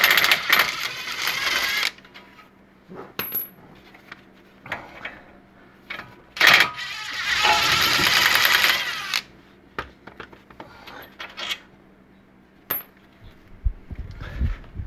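A bolt-driving tool rattles rapidly in two bursts, one of about two seconds and one of about three, as it loosens the brake caliper bolts. Scattered sharp metallic clicks of tools and parts fall between the bursts.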